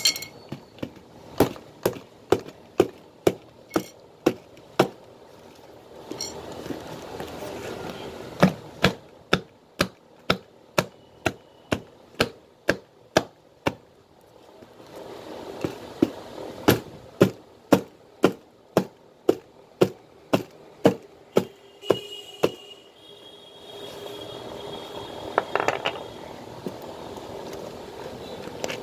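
A hammer striking a leather safety shoe again and again, in three runs of quick blows about two a second with short pauses between them. Near the end the blows stop and there is some light handling clatter.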